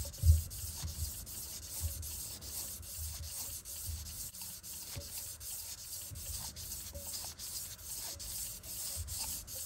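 1200-grit wet-and-dry sandpaper, lubricated with WD-40, rubbing around an LS1 crankshaft rod journal as a looped rag is pulled back and forth, a steady scratchy rasp in repeated strokes. This is the fine-grit stage of smoothing and polishing the journal.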